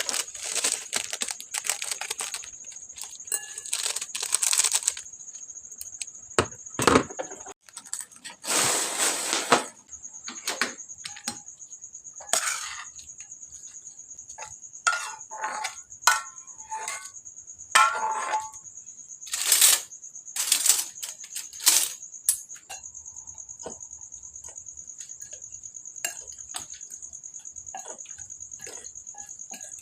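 A cricket chirring in a steady high trill, with scattered clinks, taps and clatter of dishes and kitchen utensils being handled, and a rustle lasting about a second near the middle.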